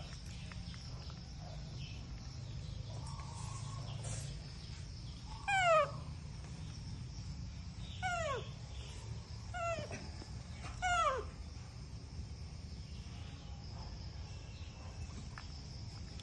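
Baby macaque calling: four short, high cries, each falling in pitch, a second or two apart, over a steady low hum.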